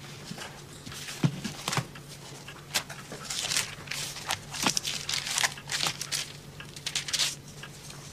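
Pages of a thick reference book being turned and riffled: quick papery rustles and flicks, after a couple of soft knocks about a second in as the book is handled.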